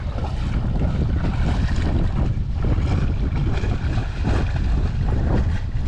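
Wind buffeting the microphone with a heavy, steady low rumble, over the irregular splashing of a person wading quickly through shallow lake water.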